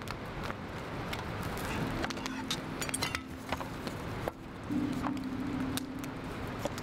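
Light clicks and knocks of a FIRE-MAPLE Star X2 compact cook pot and its parts being handled and unpacked, under background music of held notes that come in about two seconds in and shift pitch near the middle.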